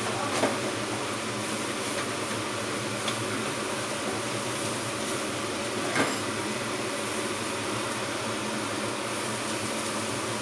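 Fermented pork and egg stir-fry sizzling steadily in a pan, with two brief clicks of a utensil against the pan.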